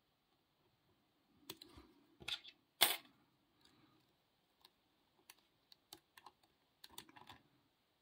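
Scattered small metallic clicks and scrapes of a hook pick and tension wrench working the pins in the keyway of a small Castle 200/20 padlock. The loudest click comes about three seconds in, and a quick cluster comes near the end.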